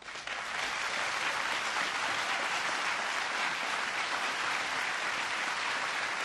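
Large audience applauding, breaking out at once and rising within about half a second, then holding at a steady level.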